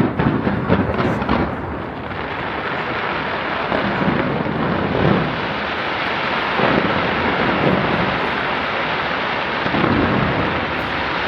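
Fireworks display going off without pause: a quick volley of crackling bursts at the start, then a sustained rumble of overlapping booms with a few heavier bangs standing out.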